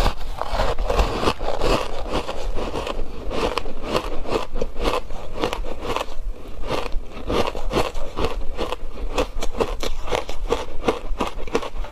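Ice chunks coated in matcha milk powder being bitten and chewed close to the microphone: rapid, continuous crunching and crackling.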